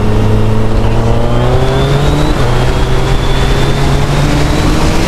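Suzuki Hayabusa's inline-four engine accelerating, its pitch rising, dropping at an upshift a little over two seconds in, then climbing again, with wind rushing over the bike.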